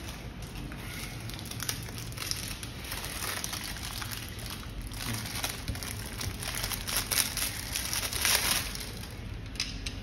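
Plastic wrapping crinkling and crackling as a bicycle pedal is unwrapped by hand, a dense run of crackles that is loudest in the last few seconds.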